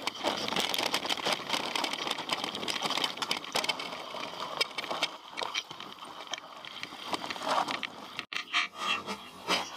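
Mountain bike descending a rocky trail: tyres rolling and scrabbling over stones, with constant rapid clattering and knocking from the bike. The sound cuts out for an instant about eight seconds in.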